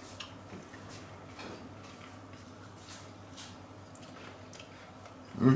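A person chewing a mouthful of roast pork with the mouth closed: faint wet mouth clicks over a steady low room hum. Near the end comes one short, loud hum of the voice.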